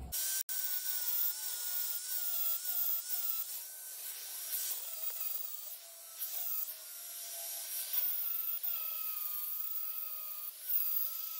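Angle grinder with a hard grinding disc running against the steel face of an anvil, taking off metal in rough bulk removal. A steady hissing grind with a motor whine that wavers in pitch as the disc is pressed into the work.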